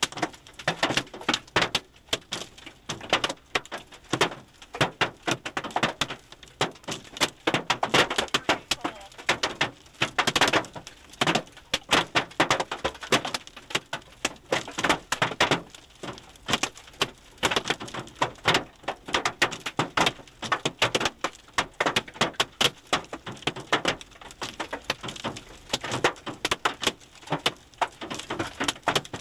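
Hailstones clattering on a car's roof and windshield, heard from inside the cabin: a dense, irregular patter of sharp hits, several a second, with no let-up.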